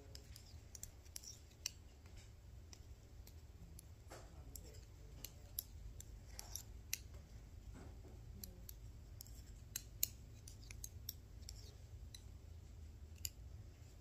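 Knitting needles clicking and tapping against each other in quick, irregular ticks as stitches are worked onto a scarf, over a faint steady low hum.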